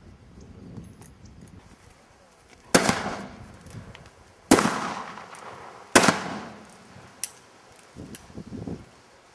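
Three gunshots fired from horseback, about one and a half seconds apart, each with a short fading tail, followed about a second later by a much fainter sharp crack.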